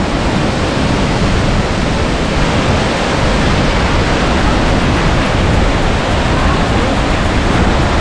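White water of a mountain stream rushing over boulders below the falls, a loud, steady, even rush of water.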